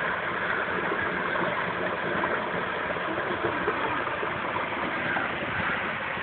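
Steady rushing background noise with no clear beat or pitch, even in level throughout.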